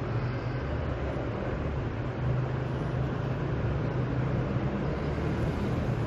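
Steady background noise: a low hum with an even hiss over it, with no clear events.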